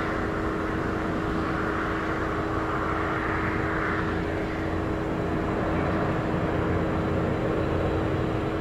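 Lockheed P-3C Orion's four Allison T56 turboprop engines and propellers droning steadily on the landing approach, with a held low hum over a broad rumble. A hissing band in the sound fades about four seconds in.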